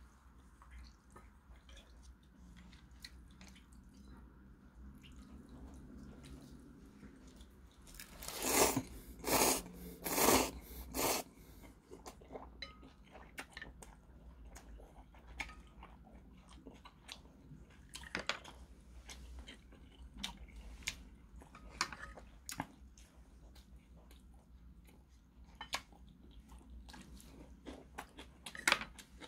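Eating ramen with wooden chopsticks: chewing with scattered small clicks throughout, and a run of four loud noodle slurps about eight to eleven seconds in.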